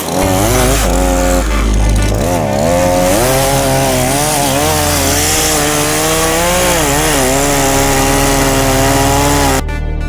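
MG4100 two-stroke gasoline chainsaw running at full throttle while cutting wood, its engine pitch sagging and recovering as it loads up in the cut. Near the end the saw sound cuts off and electronic music with a beat takes over.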